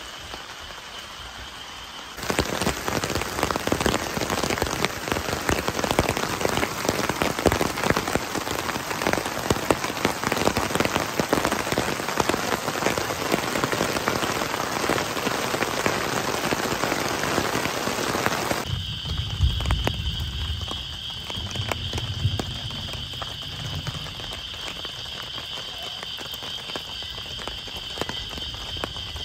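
Heavy rain pattering densely on a surface, thick with close drops. It begins suddenly about two seconds in and cuts off suddenly about two-thirds of the way through, leaving lighter rain under a steady high-pitched chorus.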